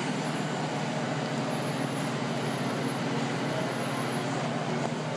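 Commercial kitchen machinery running with a steady drone and a low hum.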